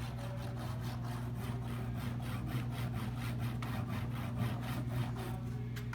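Rapid scratchy clicking and rubbing, several strokes a second, over a steady low hum.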